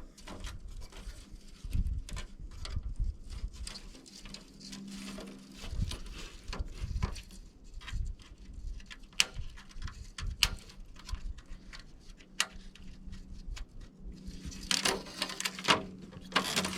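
Scattered clicks, taps and low knocks of a window screen frame being handled while the old spline and mesh are pulled out of it, with a denser, louder scraping rustle near the end.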